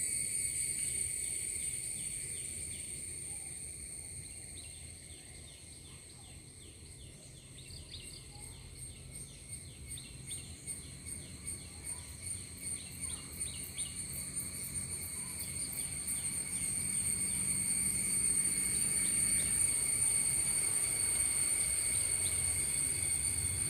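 Outdoor insect sounds: a steady high-pitched drone with a run of rapid, evenly repeated chirps. The chirps fade out about halfway through while the drone continues and the background swells.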